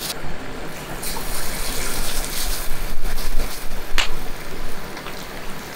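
Chicken pieces for karaage deep-frying in a small pot of hot oil, with a loud, dense sizzle and hard bubbling that grows louder about a second in. There is a sharp click about four seconds in.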